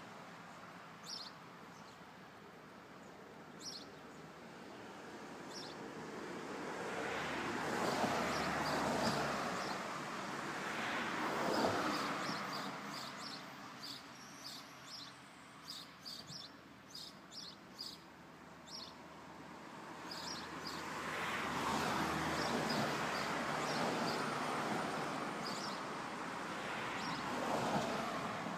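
Road vehicles driving past one after another, each a swell of engine and tyre noise that rises and fades away. There are two passing spells, the first peaking at about eight and twelve seconds and the second stretching through the last third, with a white minibus going by near the end. Small birds chirp in the quieter gaps between.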